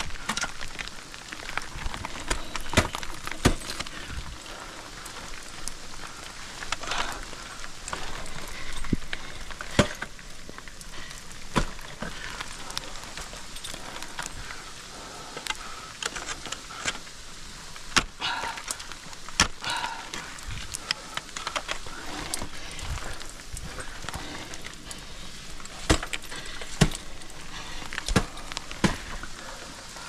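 Ice axe picks swung into the ice of a frozen waterfall: sharp, irregular strikes every second or few, over a steady hiss.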